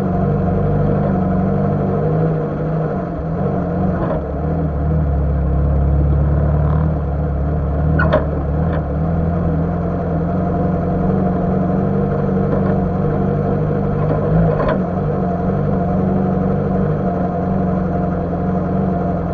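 Lada Niva's engine running steadily as the 4x4 drives slowly along a dirt track. There are a few short knocks about four, eight and fifteen seconds in.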